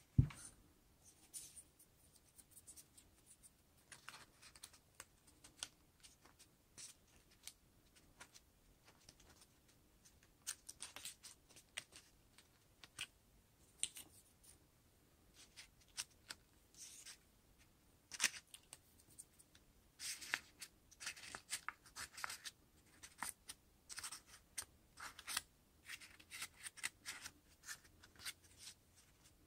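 A hot glue gun set down on the table with a single knock at the start, then paper handling: irregular crinkles and rustles of a pleated construction-paper flower being pressed and turned in the hands, busiest about two-thirds of the way through.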